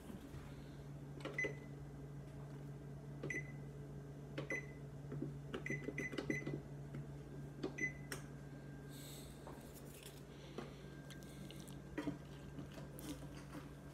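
Electronic oven control panel beeping as its buttons are pressed to set the preheat temperature: about seven short high beeps, three in quick succession around the middle, over a steady low hum.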